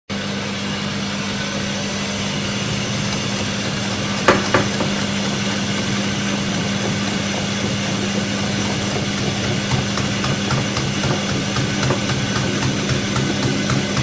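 Siemens Siwamat iQ front-loading washing machine running with its drum turning and laundry inside: a steady motor hum, two sharp knocks a little over four seconds in, and a regular clicking that grows stronger near the end.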